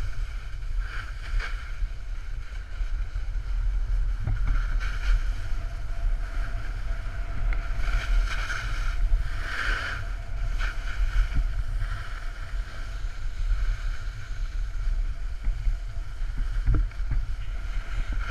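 Wind rumbling on the microphone of a camera carried by a moving snowboarder, with the hiss and scrape of snowboard edges sliding over packed snow, swelling and fading and loudest around the middle.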